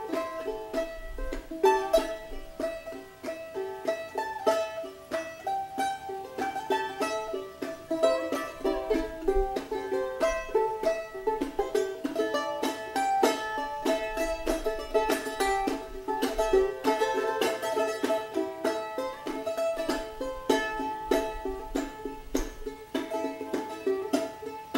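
Charango music: a quick, continuous run of plucked notes in a steady rhythm.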